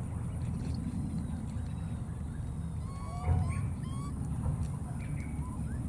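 A steady low rumble with a bump about three seconds in, then a run of short, high chirping animal calls, each rising or falling in pitch.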